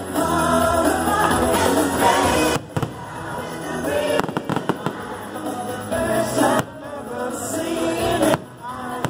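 Fireworks display with show music playing, the shells popping and banging, with a cluster of sharp bangs in the middle.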